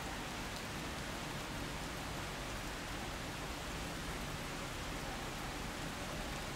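Steady, even hiss of outdoor street ambience with no distinct events.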